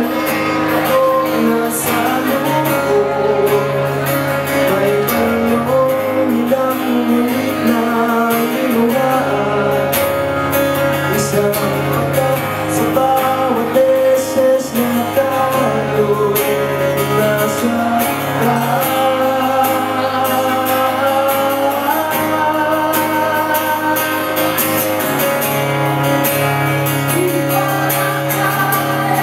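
Man singing a song live into a microphone while strumming an acoustic guitar, amplified through the venue's speakers.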